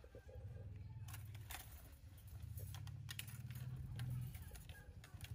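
Clothes being handled: faint rustling and scattered light clicks over a low steady rumble.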